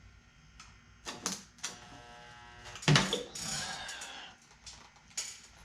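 Metal clicks and clatter of body-repair work on a steel panel, with a short hum and then one sharp loud crack about three seconds in, followed by about a second of hiss.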